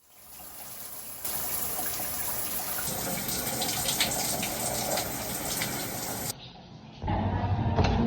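Water running in a steady hissing spray, in a few abruptly cut pieces. Near the end a low rumble takes over.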